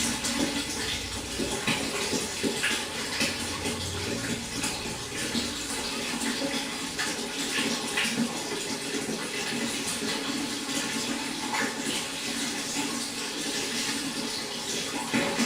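Water trickling and splashing steadily in a pond, a continuous rush dotted with many small splashes.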